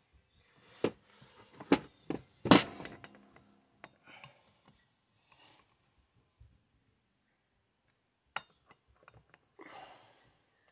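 Metal tools clinking and knocking against a bare finned chainsaw cylinder and crankcase as it is handled during disassembly: a few separate sharp clinks, the loudest about two and a half seconds in and another near eight and a half seconds.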